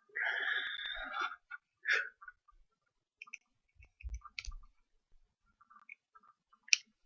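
Handling noise from alligator clips and guitar cable plugs: a brief scraping rustle at the start, then scattered light clicks as the clips and leads are worked.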